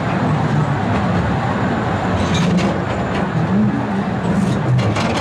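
Diesel amusement-park train rolling along its track, heard from an open-sided passenger car: a steady, loud rumble, with a few sharp clacks about halfway through and again near the end.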